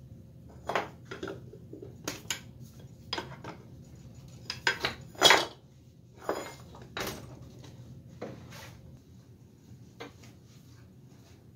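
Clanks and knocks of a Columbia leg vise being unfastened and lifted off a wooden workbench, metal striking metal and wood. The knocks come in an irregular run, loudest in a cluster of clanks about five seconds in, then thin out.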